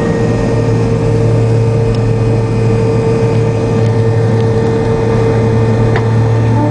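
Jet airliner's engines heard from inside the passenger cabin while the plane rolls along the ground after landing: a steady low drone with a steady whine above it.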